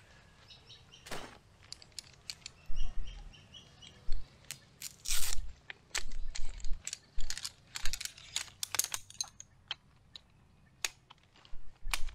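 A compact folding camping chair being unpacked and set up. The nylon bag rustles, then the blue segmented pole frame gives a string of sharp clicks and clacks, with some dull knocks, as the segments are unfolded and snapped into place.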